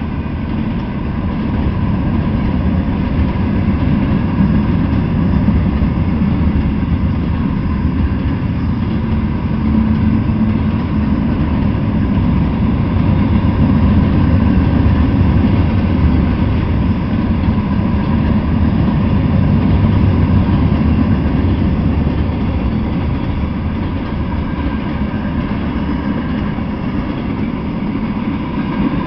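Freight train cars rolling past on the rails with a steady, loud rumble of steel wheels on track.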